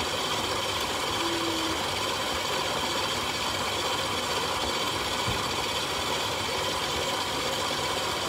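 Electric stand mixer motor running steadily, mixing cookie dough in its steel bowl.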